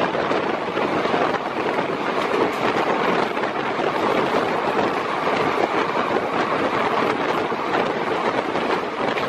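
Steady rushing noise of a double-stack container freight train's wagons and wheels running close alongside, mixed with wind buffeting the microphone from a moving train's open window.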